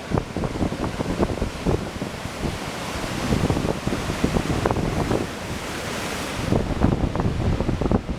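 Ocean surf breaking and washing, with a hiss that swells louder through the middle. Gusty wind buffets the microphone throughout.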